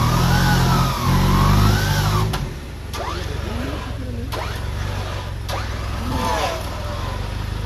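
Off-road 4x4's engine revving hard for about two seconds, then dropping suddenly to a lower steady rumble, with people shouting and a few sharp clicks.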